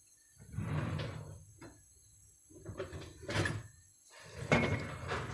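Three scraping, sliding sounds about a second each from a stainless steel pot on a gas hob as the lumps of butter in it are moved about.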